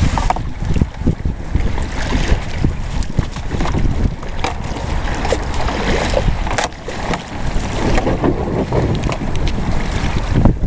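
Wind buffeting the microphone in gusts, with scattered light knocks, clicks and rustles as the folding kayak's seat, straps and buckles are handled.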